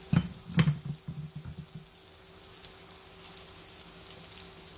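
Pork sausage patties frying in a nonstick skillet, the fat sizzling steadily, with a couple of knocks against the pan in the first second.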